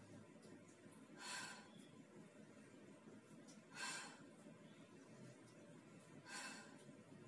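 A woman's short, breathy exhalations, three of them about two and a half seconds apart, breathing out with each repetition of a lunge exercise. Faint room hiss between breaths.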